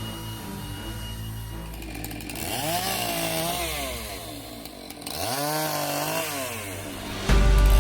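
Small gasoline engine revved up and let back down twice, chainsaw-like, over quiet background music. A much louder steady sound cuts in just before the end.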